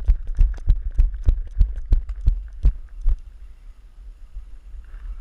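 Running footsteps heard through a body-worn camera, each stride a heavy thud at about three a second, stopping a little after three seconds in. A quieter low rumble of wind and handling follows.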